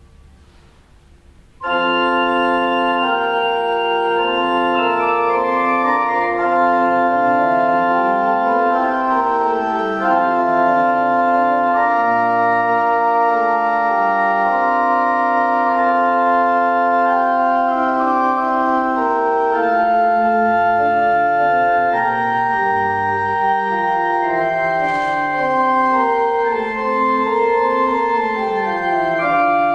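Church organ playing sustained full chords, long held notes over a slowly moving bass line in the pedals, starting suddenly a little under two seconds in.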